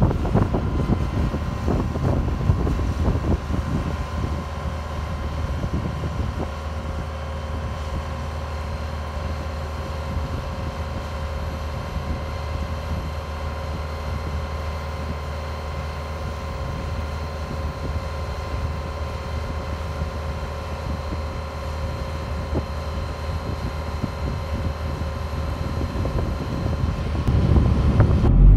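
John Deere 120 excavator's diesel engine running steadily while it holds a roof truss on its jib, a low rumble with a faint steady whine above it. Wind noise on the microphone.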